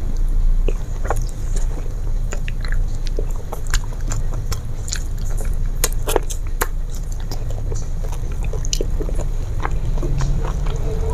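A person chewing and biting fried chicken eaten by hand, with many scattered sharp clicks from the mouth and fingers, over a steady low hum.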